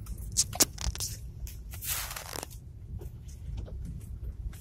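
Inside a Swift hatchback driving over a rough patch of mountain road: a steady low rumble of engine and tyres, with sharp knocks and rattles from the car over the bumps in the first second and a rough scraping swish about two seconds in.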